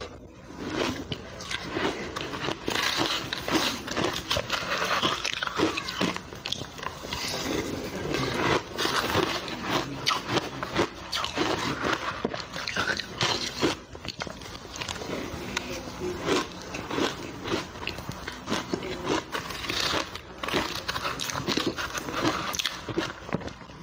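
Crushed ice being bitten and chewed close to the microphone: a dense, continuous run of crunching and crackling.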